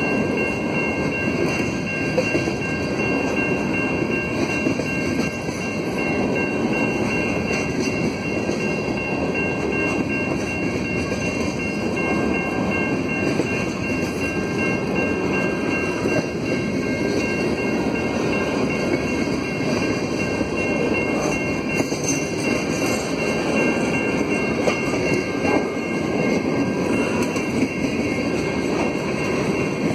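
Freight train cars rolling steadily past over a level crossing: the continuous noise of steel wheels on the rails, with a thin steady high tone over it.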